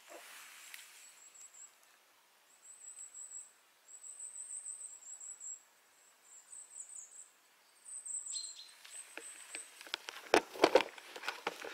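High, thin bird song in short warbling phrases, with gaps between them. Near the end come loud footsteps crunching over grass and twigs.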